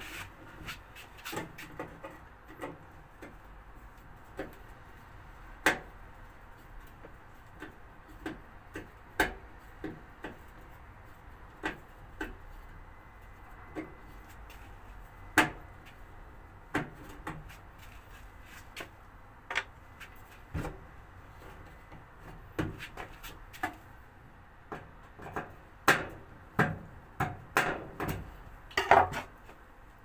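Irregular clicks and knocks of hard objects being handled, every second or two, with a quick run of louder knocks near the end.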